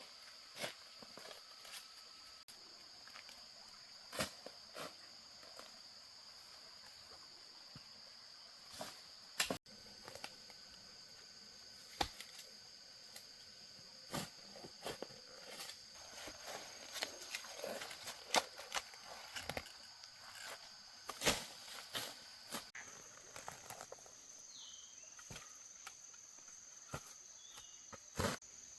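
Insects buzzing steadily in a high pitch, with scattered sharp clicks and knocks throughout and a few short chirps near the end.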